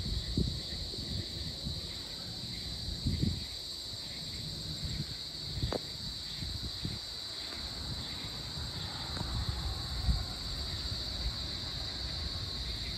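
Evening insect chorus, a steady high-pitched drone, over a low rumble with scattered soft thumps.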